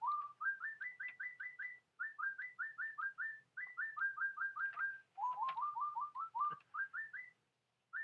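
Robotic toy bird chirping: rapid runs of short rising whistled chirps, about five a second, stepping up and down in pitch, in phrases broken by short pauses.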